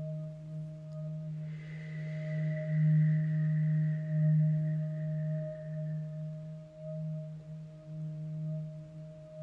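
Ambient meditation music: a steady, low sustained drone with softer held tones above it. A higher ringing tone enters about one and a half seconds in and fades away over the next few seconds.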